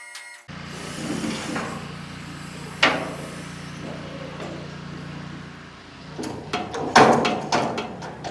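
Metal clanks and knocks of shop work over a steady low hum, with one sharp knock about three seconds in and a loud cluster of knocks near the end.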